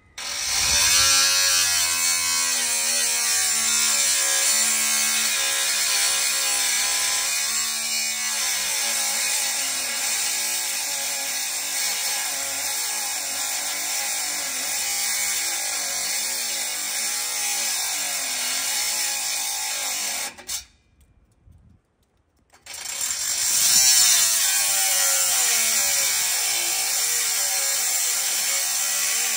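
Small power saw running and cutting into a steel exhaust pipe, its motor pitch wavering as it bogs under load. It stops about twenty seconds in and starts again about two seconds later.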